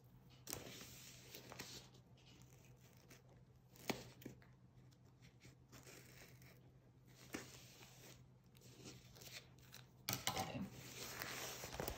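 Scissors cutting through the paper wrapping of a rolled canvas, with faint snips and paper tearing, and louder rustling of paper and plastic near the end as the roll is opened.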